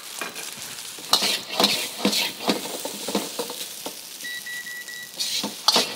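Rice and egg sizzling in a hot wok as the fried rice starts, with a metal wok ladle repeatedly scraping and knocking against the wok as it stirs and breaks up the rice. The strikes come in a quick run a second or so in and again near the end.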